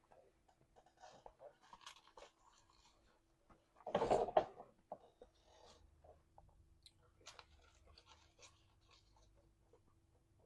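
Close-miked eating: soft chewing, lip smacks and small mouth clicks, with one louder half-second burst about four seconds in.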